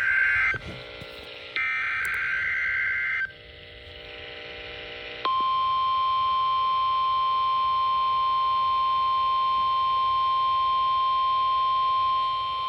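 NOAA Weather Radio Required Weekly Test signal. The tail of one SAME digital header burst is followed by a second buzzy data burst of under two seconds. From about five seconds in, a steady single alert tone near 1 kHz sounds: the 1050 Hz warning alarm tone.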